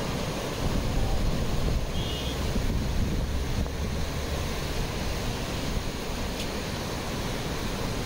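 Fast mountain stream rushing over boulders, a steady roar of whitewater, with wind buffeting the microphone.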